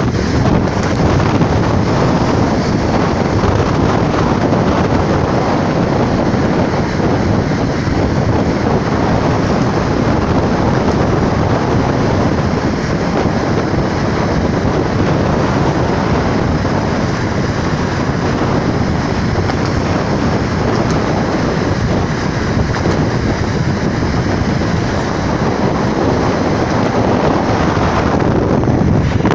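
Steady rush of wind over the microphone with the road and tyre noise of a car driving at speed.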